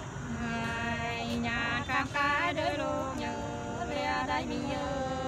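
Unaccompanied sli singing, the Nùng folk courtship song: a voice sustains long notes with wavering, sliding ornaments.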